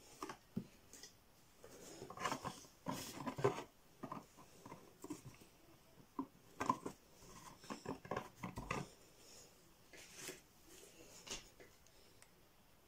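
Cardboard birdhouse parts and a hot glue gun being handled on a tabletop: scattered light taps, knocks and rustles, thinning out near the end.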